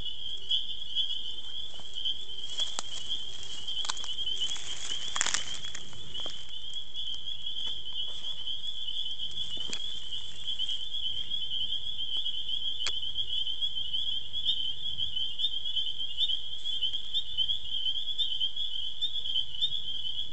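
A dense chorus of frogs calling continuously at one high pitch, the calls blending into a steady shimmering trill. A few brief rustles and clicks cut through it between about two and six seconds in.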